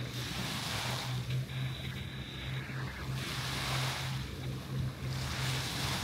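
Small waves breaking and washing up a sandy beach, the surf hiss swelling and fading every two to three seconds over a steady low hum.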